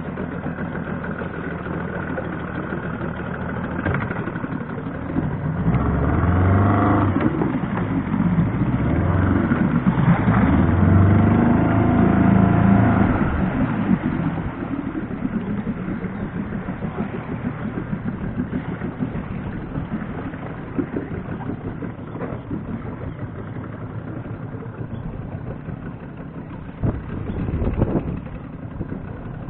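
A small boat's engine running as the boat moves along the river. It grows louder for several seconds, then eases back, with a brief rise again near the end.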